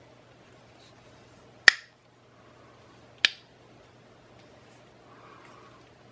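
Two sharp clicks of Glock 19 slide parts being worked by hand, about a second and a half apart, the first louder, over a faint steady hum.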